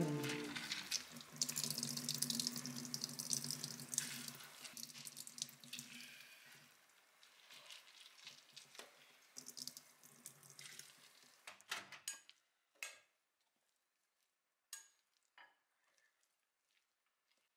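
Shredded cabbage squeezed by hand, squelching and crackling, its water dripping and splashing into a stainless-steel sink. After about twelve seconds it goes nearly quiet apart from a few light clicks.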